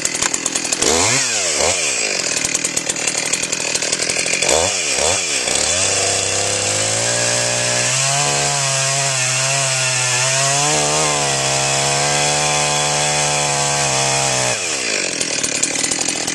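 Chainsaw revving up and down twice, then held at a steady high speed for about eight seconds as it saws a notch 3 inches deep into a log, before its pitch drops away near the end.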